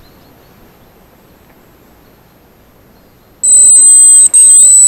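Hazel grouse decoy whistle (manok) blown to call the bird. About three and a half seconds in, a loud, very high, thin whistle starts suddenly, holds with one brief break, and dips slightly in pitch near the end.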